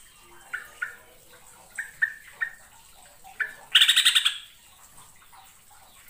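Yellow-vented bulbul calling: a series of short clear notes, then a loud burst of fast chatter lasting about half a second a little after midway.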